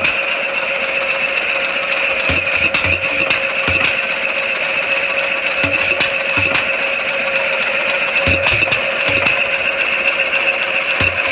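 A 5 HP Bovaird and Seyfang hot-tube-ignition oil field gas engine running without a silencer. Its exhaust beats come irregularly, in groups of two or three with short gaps, along with sharp mechanical clicks. A steady high whine lies over it.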